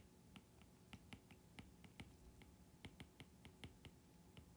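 Faint, irregular clicks, several a second, of a stylus tip tapping a tablet screen as words are handwritten.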